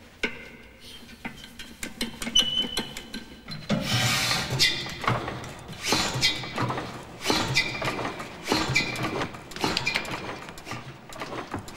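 Early single-cylinder stationary diesel engine starting up a few seconds in and running slowly, with heavy, uneven beats about once a second.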